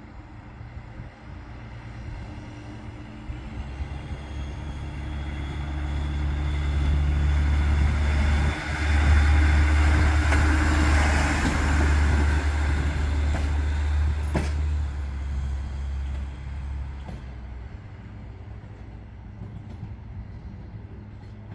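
Single-car diesel railbus approaching and passing close by: a low engine drone builds, peaks mid-way with a rush of wheel and rail noise, then fades away. There is one sharp click about two-thirds through.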